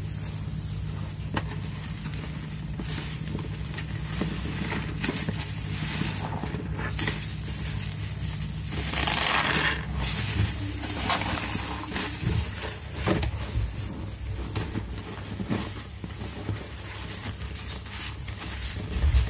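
Soap-soaked foam sponges, cut from mattress foam, squeezed and squished by gloved hands in thick suds: wet squelching and crackling foam, with a louder squeeze about nine seconds in. A low steady hum sits underneath for the first half.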